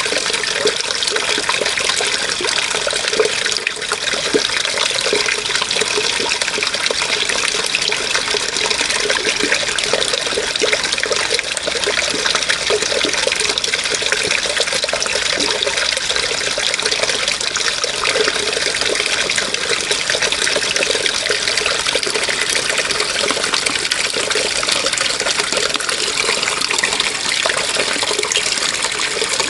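Running water flowing steadily, an even splashing rush with no break.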